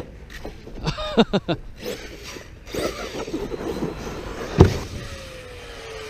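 Arrma Notorious 6S RC stunt truck landing with a hard thump, then its brushless motor whining in short throttle bursts that sweep up and down in pitch. A second loud thump comes about four and a half seconds in, followed by a whine that slowly falls in pitch as the wheels spin down with the truck in the air.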